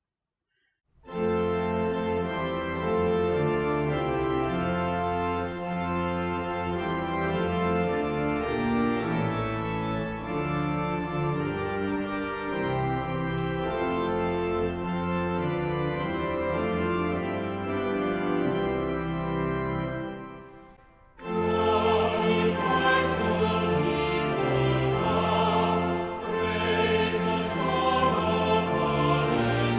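Organ playing sustained chords, starting about a second in. About twenty seconds in it stops briefly, then a choir begins singing with the organ.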